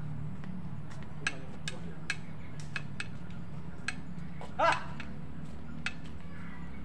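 Badminton rackets striking a shuttlecock in a fast doubles rally: a run of sharp taps, some coming in quick succession, over a steady low hum. A short loud cry rings out a little past the middle.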